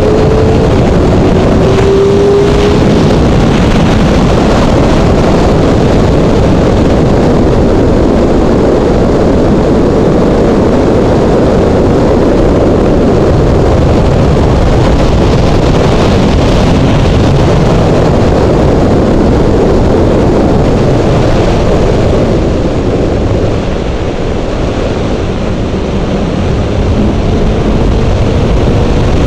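Honda CBR600 motorcycle at road speed: heavy wind rush over the microphone with the inline-four engine running underneath. The engine note rises near the start; the rush eases for a few seconds past the two-thirds mark, then builds again near the end.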